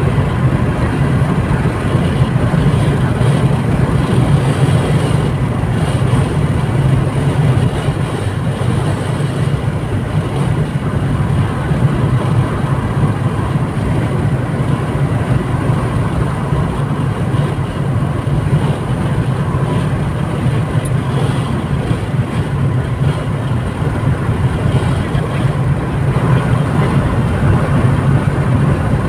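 Steady drone of a car driving at highway speed, heard from inside the cabin: engine and tyre noise on asphalt.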